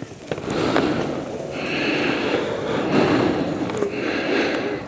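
Cut maple limb dragged over the ground, its leaves and twigs making a steady rustle and scrape with a few snapping ticks.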